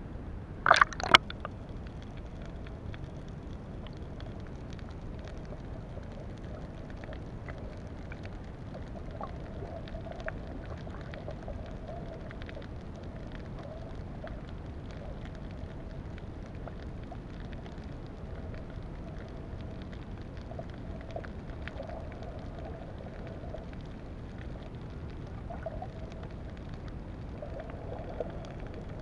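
Underwater ambience picked up by an action camera in a waterproof housing. About a second in there is a short, loud splash as the camera goes back under the surface. After that comes a steady low rush of water with faint, scattered crackling ticks.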